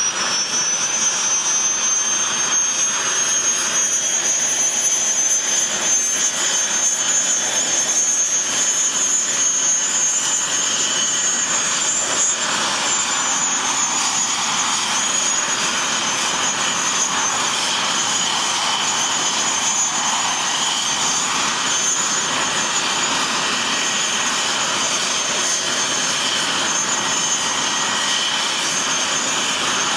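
English Electric Lightning F.6's Rolls-Royce Avon turbojet running on the ground: a steady jet rush with a high-pitched whine that climbs slightly over the first dozen seconds, then holds level.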